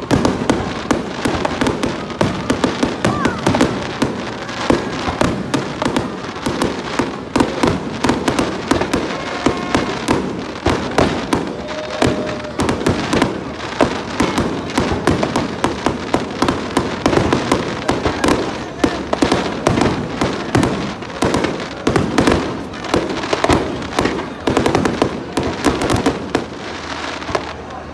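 Aerial fireworks display: shells bursting in rapid, overlapping bangs with crackling, several a second, a steady barrage.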